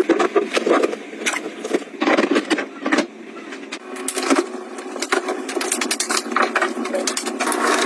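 Household cleaning and handling sounds: a cloth rubbing as it wipes the inside of an oven, with many short knocks and clicks, then a refrigerator door being pulled open.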